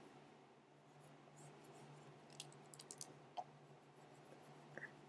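Near silence: a faint steady low hum, with a few light clicks and taps of a stylus on a graphics tablet about halfway through and again near the end.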